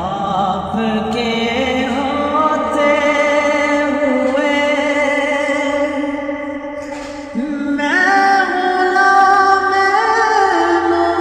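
Naat singing: a wordless vocal passage of long held, ornamented notes with no clear instrumental backing, stepping up in pitch and loudness about seven and a half seconds in.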